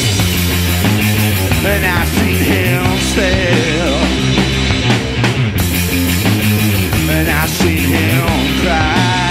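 Rock band playing loud and steady: electric guitar, bass and drum kit, with a melody line above them that bends and wavers in pitch.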